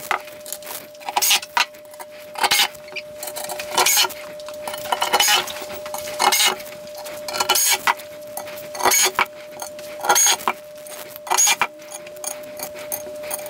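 Small metal screws clinking and tapping, in short irregular bursts about once a second, as they are picked up and set into the metal frame of a resin 3D-printer vat.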